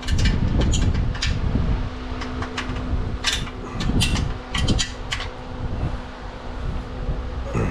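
A hand wrench working loose a small 8 mm bolt: scattered sharp metallic clicks and clinks of the tool against the bolt and metal parts, over a loud low rumble and a steady hum.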